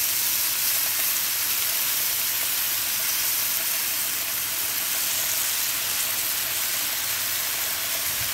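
Jumbo shrimp frying in oil in a hot nonstick pan: a steady sizzle.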